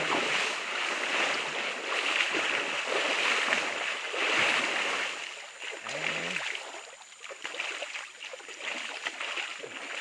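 Water splashing and sloshing as a person bathes in marsh water, busy for about the first six seconds and then lighter.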